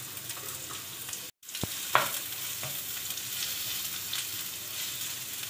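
Sliced onions sizzling in hot oil in a non-stick frying pan as they are stirred, with a steady hiss. The sound drops out for a moment just over a second in, and a sharp knock on the pan comes about two seconds in.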